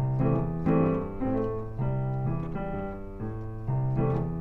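Instrumental background music: a piano playing a steady sequence of chords.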